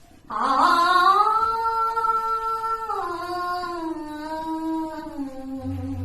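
A woman singing one long drawn-out note that starts abruptly, then steps down lower about three seconds in and again near the end.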